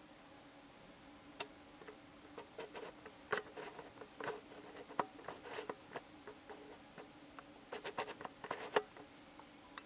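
Camera lens focus ring being turned by hand, making quick little chp-chp-chp clicks in irregular runs, busiest about three to four seconds in and again around eight seconds in.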